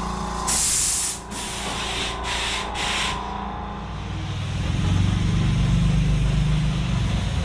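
Compressed-air paint spray gun hissing in a few short bursts as paint is sprayed, then an air compressor running with a steady low drone.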